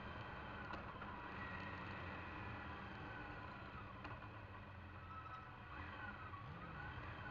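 Motorcycle engine running steadily at road speed, heard from a camera on the bike, under wind and road noise. Near the end the engine note briefly dips and rises again.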